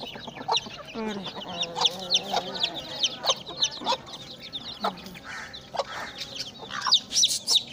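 A brood of young chicks peeping constantly in many short, high, falling chirps. Their mother, an aseel hen, clucks low among them, most clearly from about one to two and a half seconds in.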